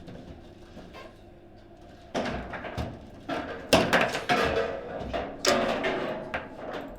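Table football play: a run of sharp knocks and clatters from the ball and rod-mounted players striking the table, starting about two seconds in and loudest in the middle.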